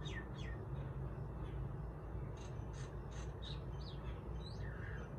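Myna calling: two quick falling whistles at the start, then a run of short, sharp notes and small whistled glides from about two and a half seconds in, over a steady low background hum.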